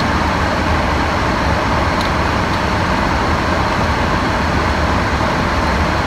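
Car air conditioning blowing steadily: a loud, even rush of air with a low hum beneath it.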